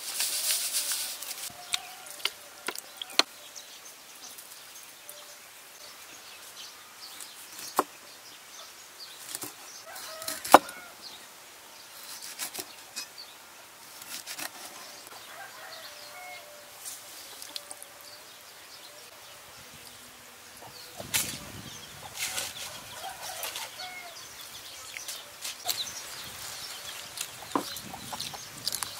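Food-preparation sounds: a metal spoon clinking and scraping in a glass bowl as a sauce is stirred, and a knife cutting limes on a board, heard as scattered sharp clinks and taps, the loudest about ten seconds in, with rustling about twenty seconds in. Hens cluck faintly in the background.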